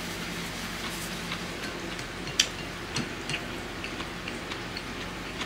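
Quiet eating sounds: chewing a nori-wrapped rice ball, with a few sharp clicks, the loudest about two and a half seconds in, from chopsticks against a porcelain ramen bowl.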